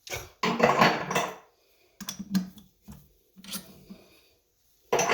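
Steel parts and hand tools clinking and clattering in irregular bursts as they are handled, the loudest about a second in.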